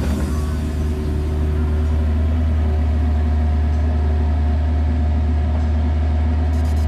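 Diesel engine of a piece of earthmoving machinery running at a steady speed, a deep constant hum with no revving. A brief hiss comes in near the end.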